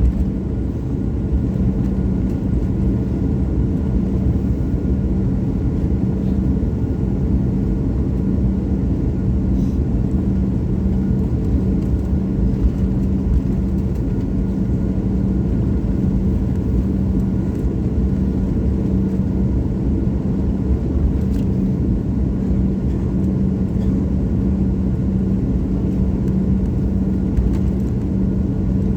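Jet airliner engine noise: a steady low rumble with a constant hum, unchanging throughout.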